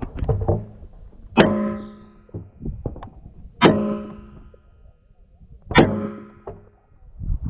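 Three rifle shots about two seconds apart, each followed by about a second of metallic ringing, typical of steel targets being hit. Lighter clicks and knocks of rifle handling come between the shots.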